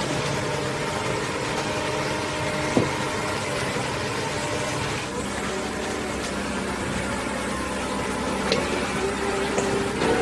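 Diesel engine of a Liebherr 900 road-rail excavator running steadily, with one sharp knock about three seconds in and a few faint clicks near the end.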